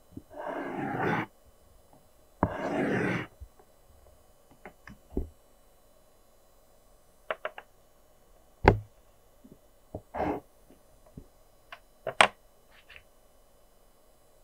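Pencil drawing on paper: two long strokes in the first few seconds, each a steady scratchy rasp lasting about a second, then scattered light taps, knocks and short strokes of the pencil against the paper and drawing surface.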